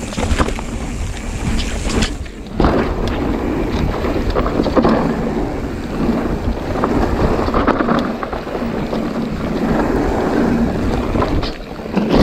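Wind buffeting an action camera's microphone, a continuous rough rushing noise that dips briefly about two seconds in and then comes back stronger.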